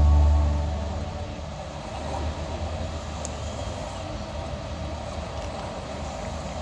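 A sustained music chord dies away in the first half-second, leaving a steady, even outdoor background noise with a few faint ticks.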